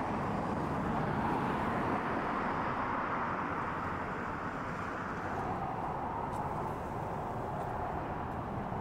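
Steady outdoor street ambience: a constant hum of road traffic with no distinct events.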